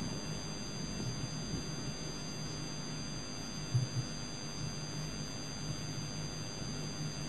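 Steady mains hum and hiss of an old recording, with two faint low bumps about four seconds in.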